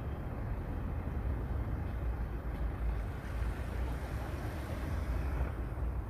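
Steady low outdoor rumble of wind on the microphone by the sea, with no distinct events.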